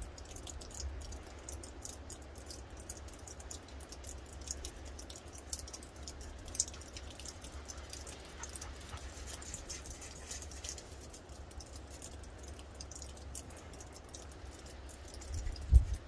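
Light, irregular crunching and pattering of footsteps in snow over a steady low rumble, with one loud thump near the end.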